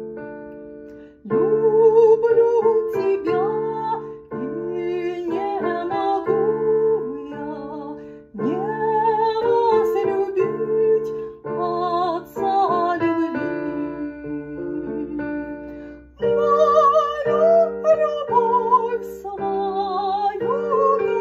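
A woman singing a Russian hymn with vibrato, in phrases broken by short breaths, accompanying herself with sustained chords on an electric keyboard.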